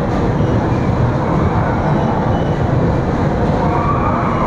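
Steady running noise of a moving passenger train: a continuous low rumble of the coach rolling on the rails at speed.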